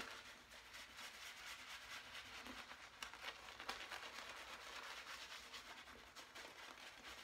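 Faint, brisk swishing and scratching of a synthetic shaving brush working shaving-cream lather into beard stubble, many quick strokes one after another.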